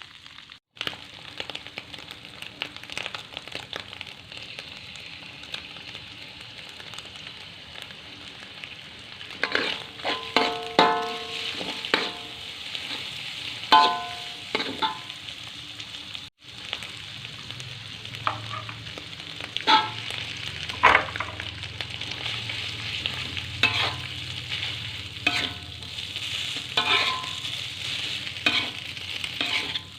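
Stir-frying in a pan: food sizzling steadily in oil while a spatula stirs it, with repeated ringing clinks of the spatula against the pan, busiest in the middle and second half.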